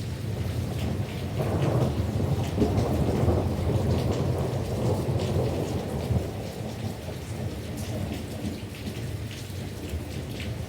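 Thunder rumbling on and on, swelling about a second and a half in and slowly easing off, under steady rain falling.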